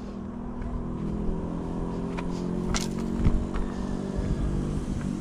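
An engine drones steadily at a constant pitch, with a few sharp clicks and knocks over it near the middle.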